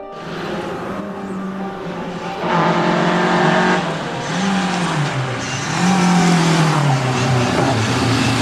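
Lada saloon rally car engine revving hard on approach, its note rising and falling several times and getting louder from about two and a half seconds in.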